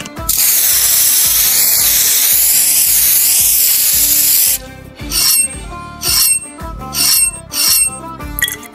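Compressed-air gravity-feed paint spray gun spraying, a loud steady hiss lasting about four seconds. It is followed by several short hisses of the gun being triggered in bursts.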